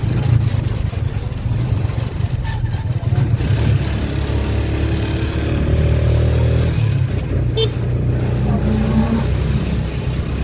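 Motor vehicle engine running while on the move, under a heavy, steady low rumble; a higher engine note comes up for a couple of seconds around the middle.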